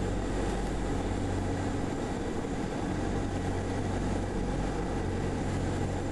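Cessna 172R's four-cylinder Lycoming engine and propeller running steadily, heard inside the cabin, with a steady rush of air.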